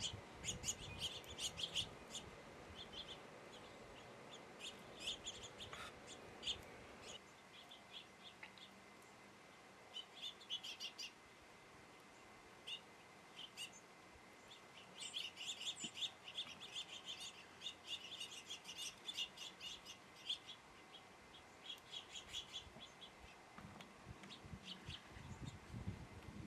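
Small songbirds chirping: clusters of short, sharp chips that come and go, with brief pauses between bursts.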